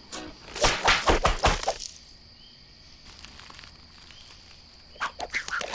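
A quick run of loud slaps, a taco smacking a face, about half a second in and lasting about a second, followed by a quiet stretch and a few lighter hits near the end.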